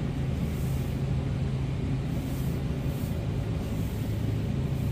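A steady low hum with a rumble beneath it, the constant background noise of a grocery store.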